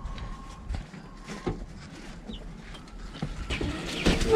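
Faint, brief high cheeps from young chickens over scattered knocks and rustling, with the rustling and bumping growing louder near the end.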